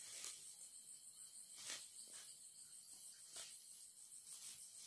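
Night insects, crickets among them, keep up a faint, steady, high-pitched pulsing chorus. A few faint short rustles of tackle being handled sound through it.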